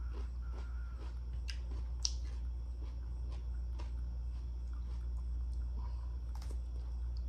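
Close-up mouth sounds of someone chewing and biting soft boiled potato, with scattered small clicks over a steady low hum.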